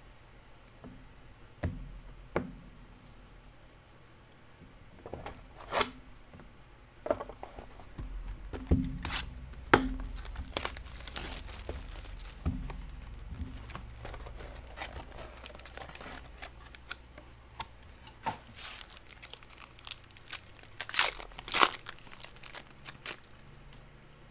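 Trading-card pack wrappers being torn open and crinkled, in short bursts with scattered clicks of cards and packaging being handled. The loudest tearing comes near the end.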